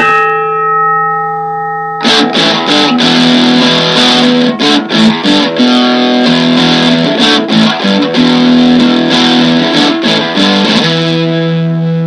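Electric guitar music: a held chord rings and fades, then a rhythmic strummed riff starts about two seconds in, and near the end it settles into a sustained chord.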